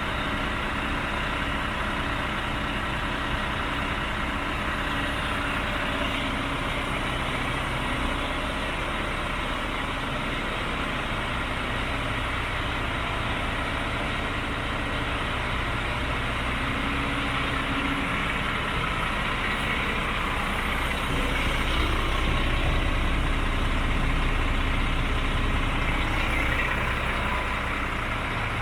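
DAF CF75 truck's 310 hp turbocharged Euro 5 diesel idling steadily, getting slightly louder for a few seconds about three-quarters of the way through.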